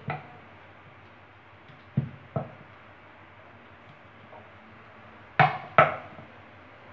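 Rolling pin knocking against a round wooden rolling board while thin discs of dough are rolled out: two light knocks about two seconds in, then two louder ones a little past five seconds.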